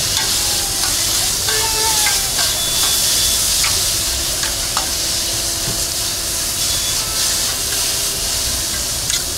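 Onion and egg filling frying on a large flat tawa griddle, with a steady sizzle, while a slotted metal spatula stirs it and scrapes and clicks against the griddle now and then.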